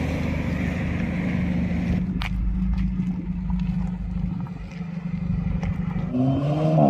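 Volkswagen Golf R's turbocharged four-cylinder engine running at a steady idle, with a few faint clicks in the middle, then revving up with a rising engine note near the end as the car pulls away.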